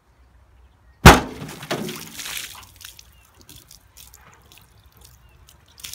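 A bottle holding a leaking CO2 cartridge bursts under water from the gas pressure with a single sharp bang about a second in. Splashing water follows, fading over a couple of seconds, then scattered drips and small splashes as the water settles.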